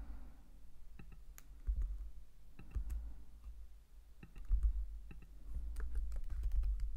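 Scattered computer keyboard keystrokes and mouse clicks as single shortcut keys are tapped to extrude and scale a model, over a low rumble that swells a few times.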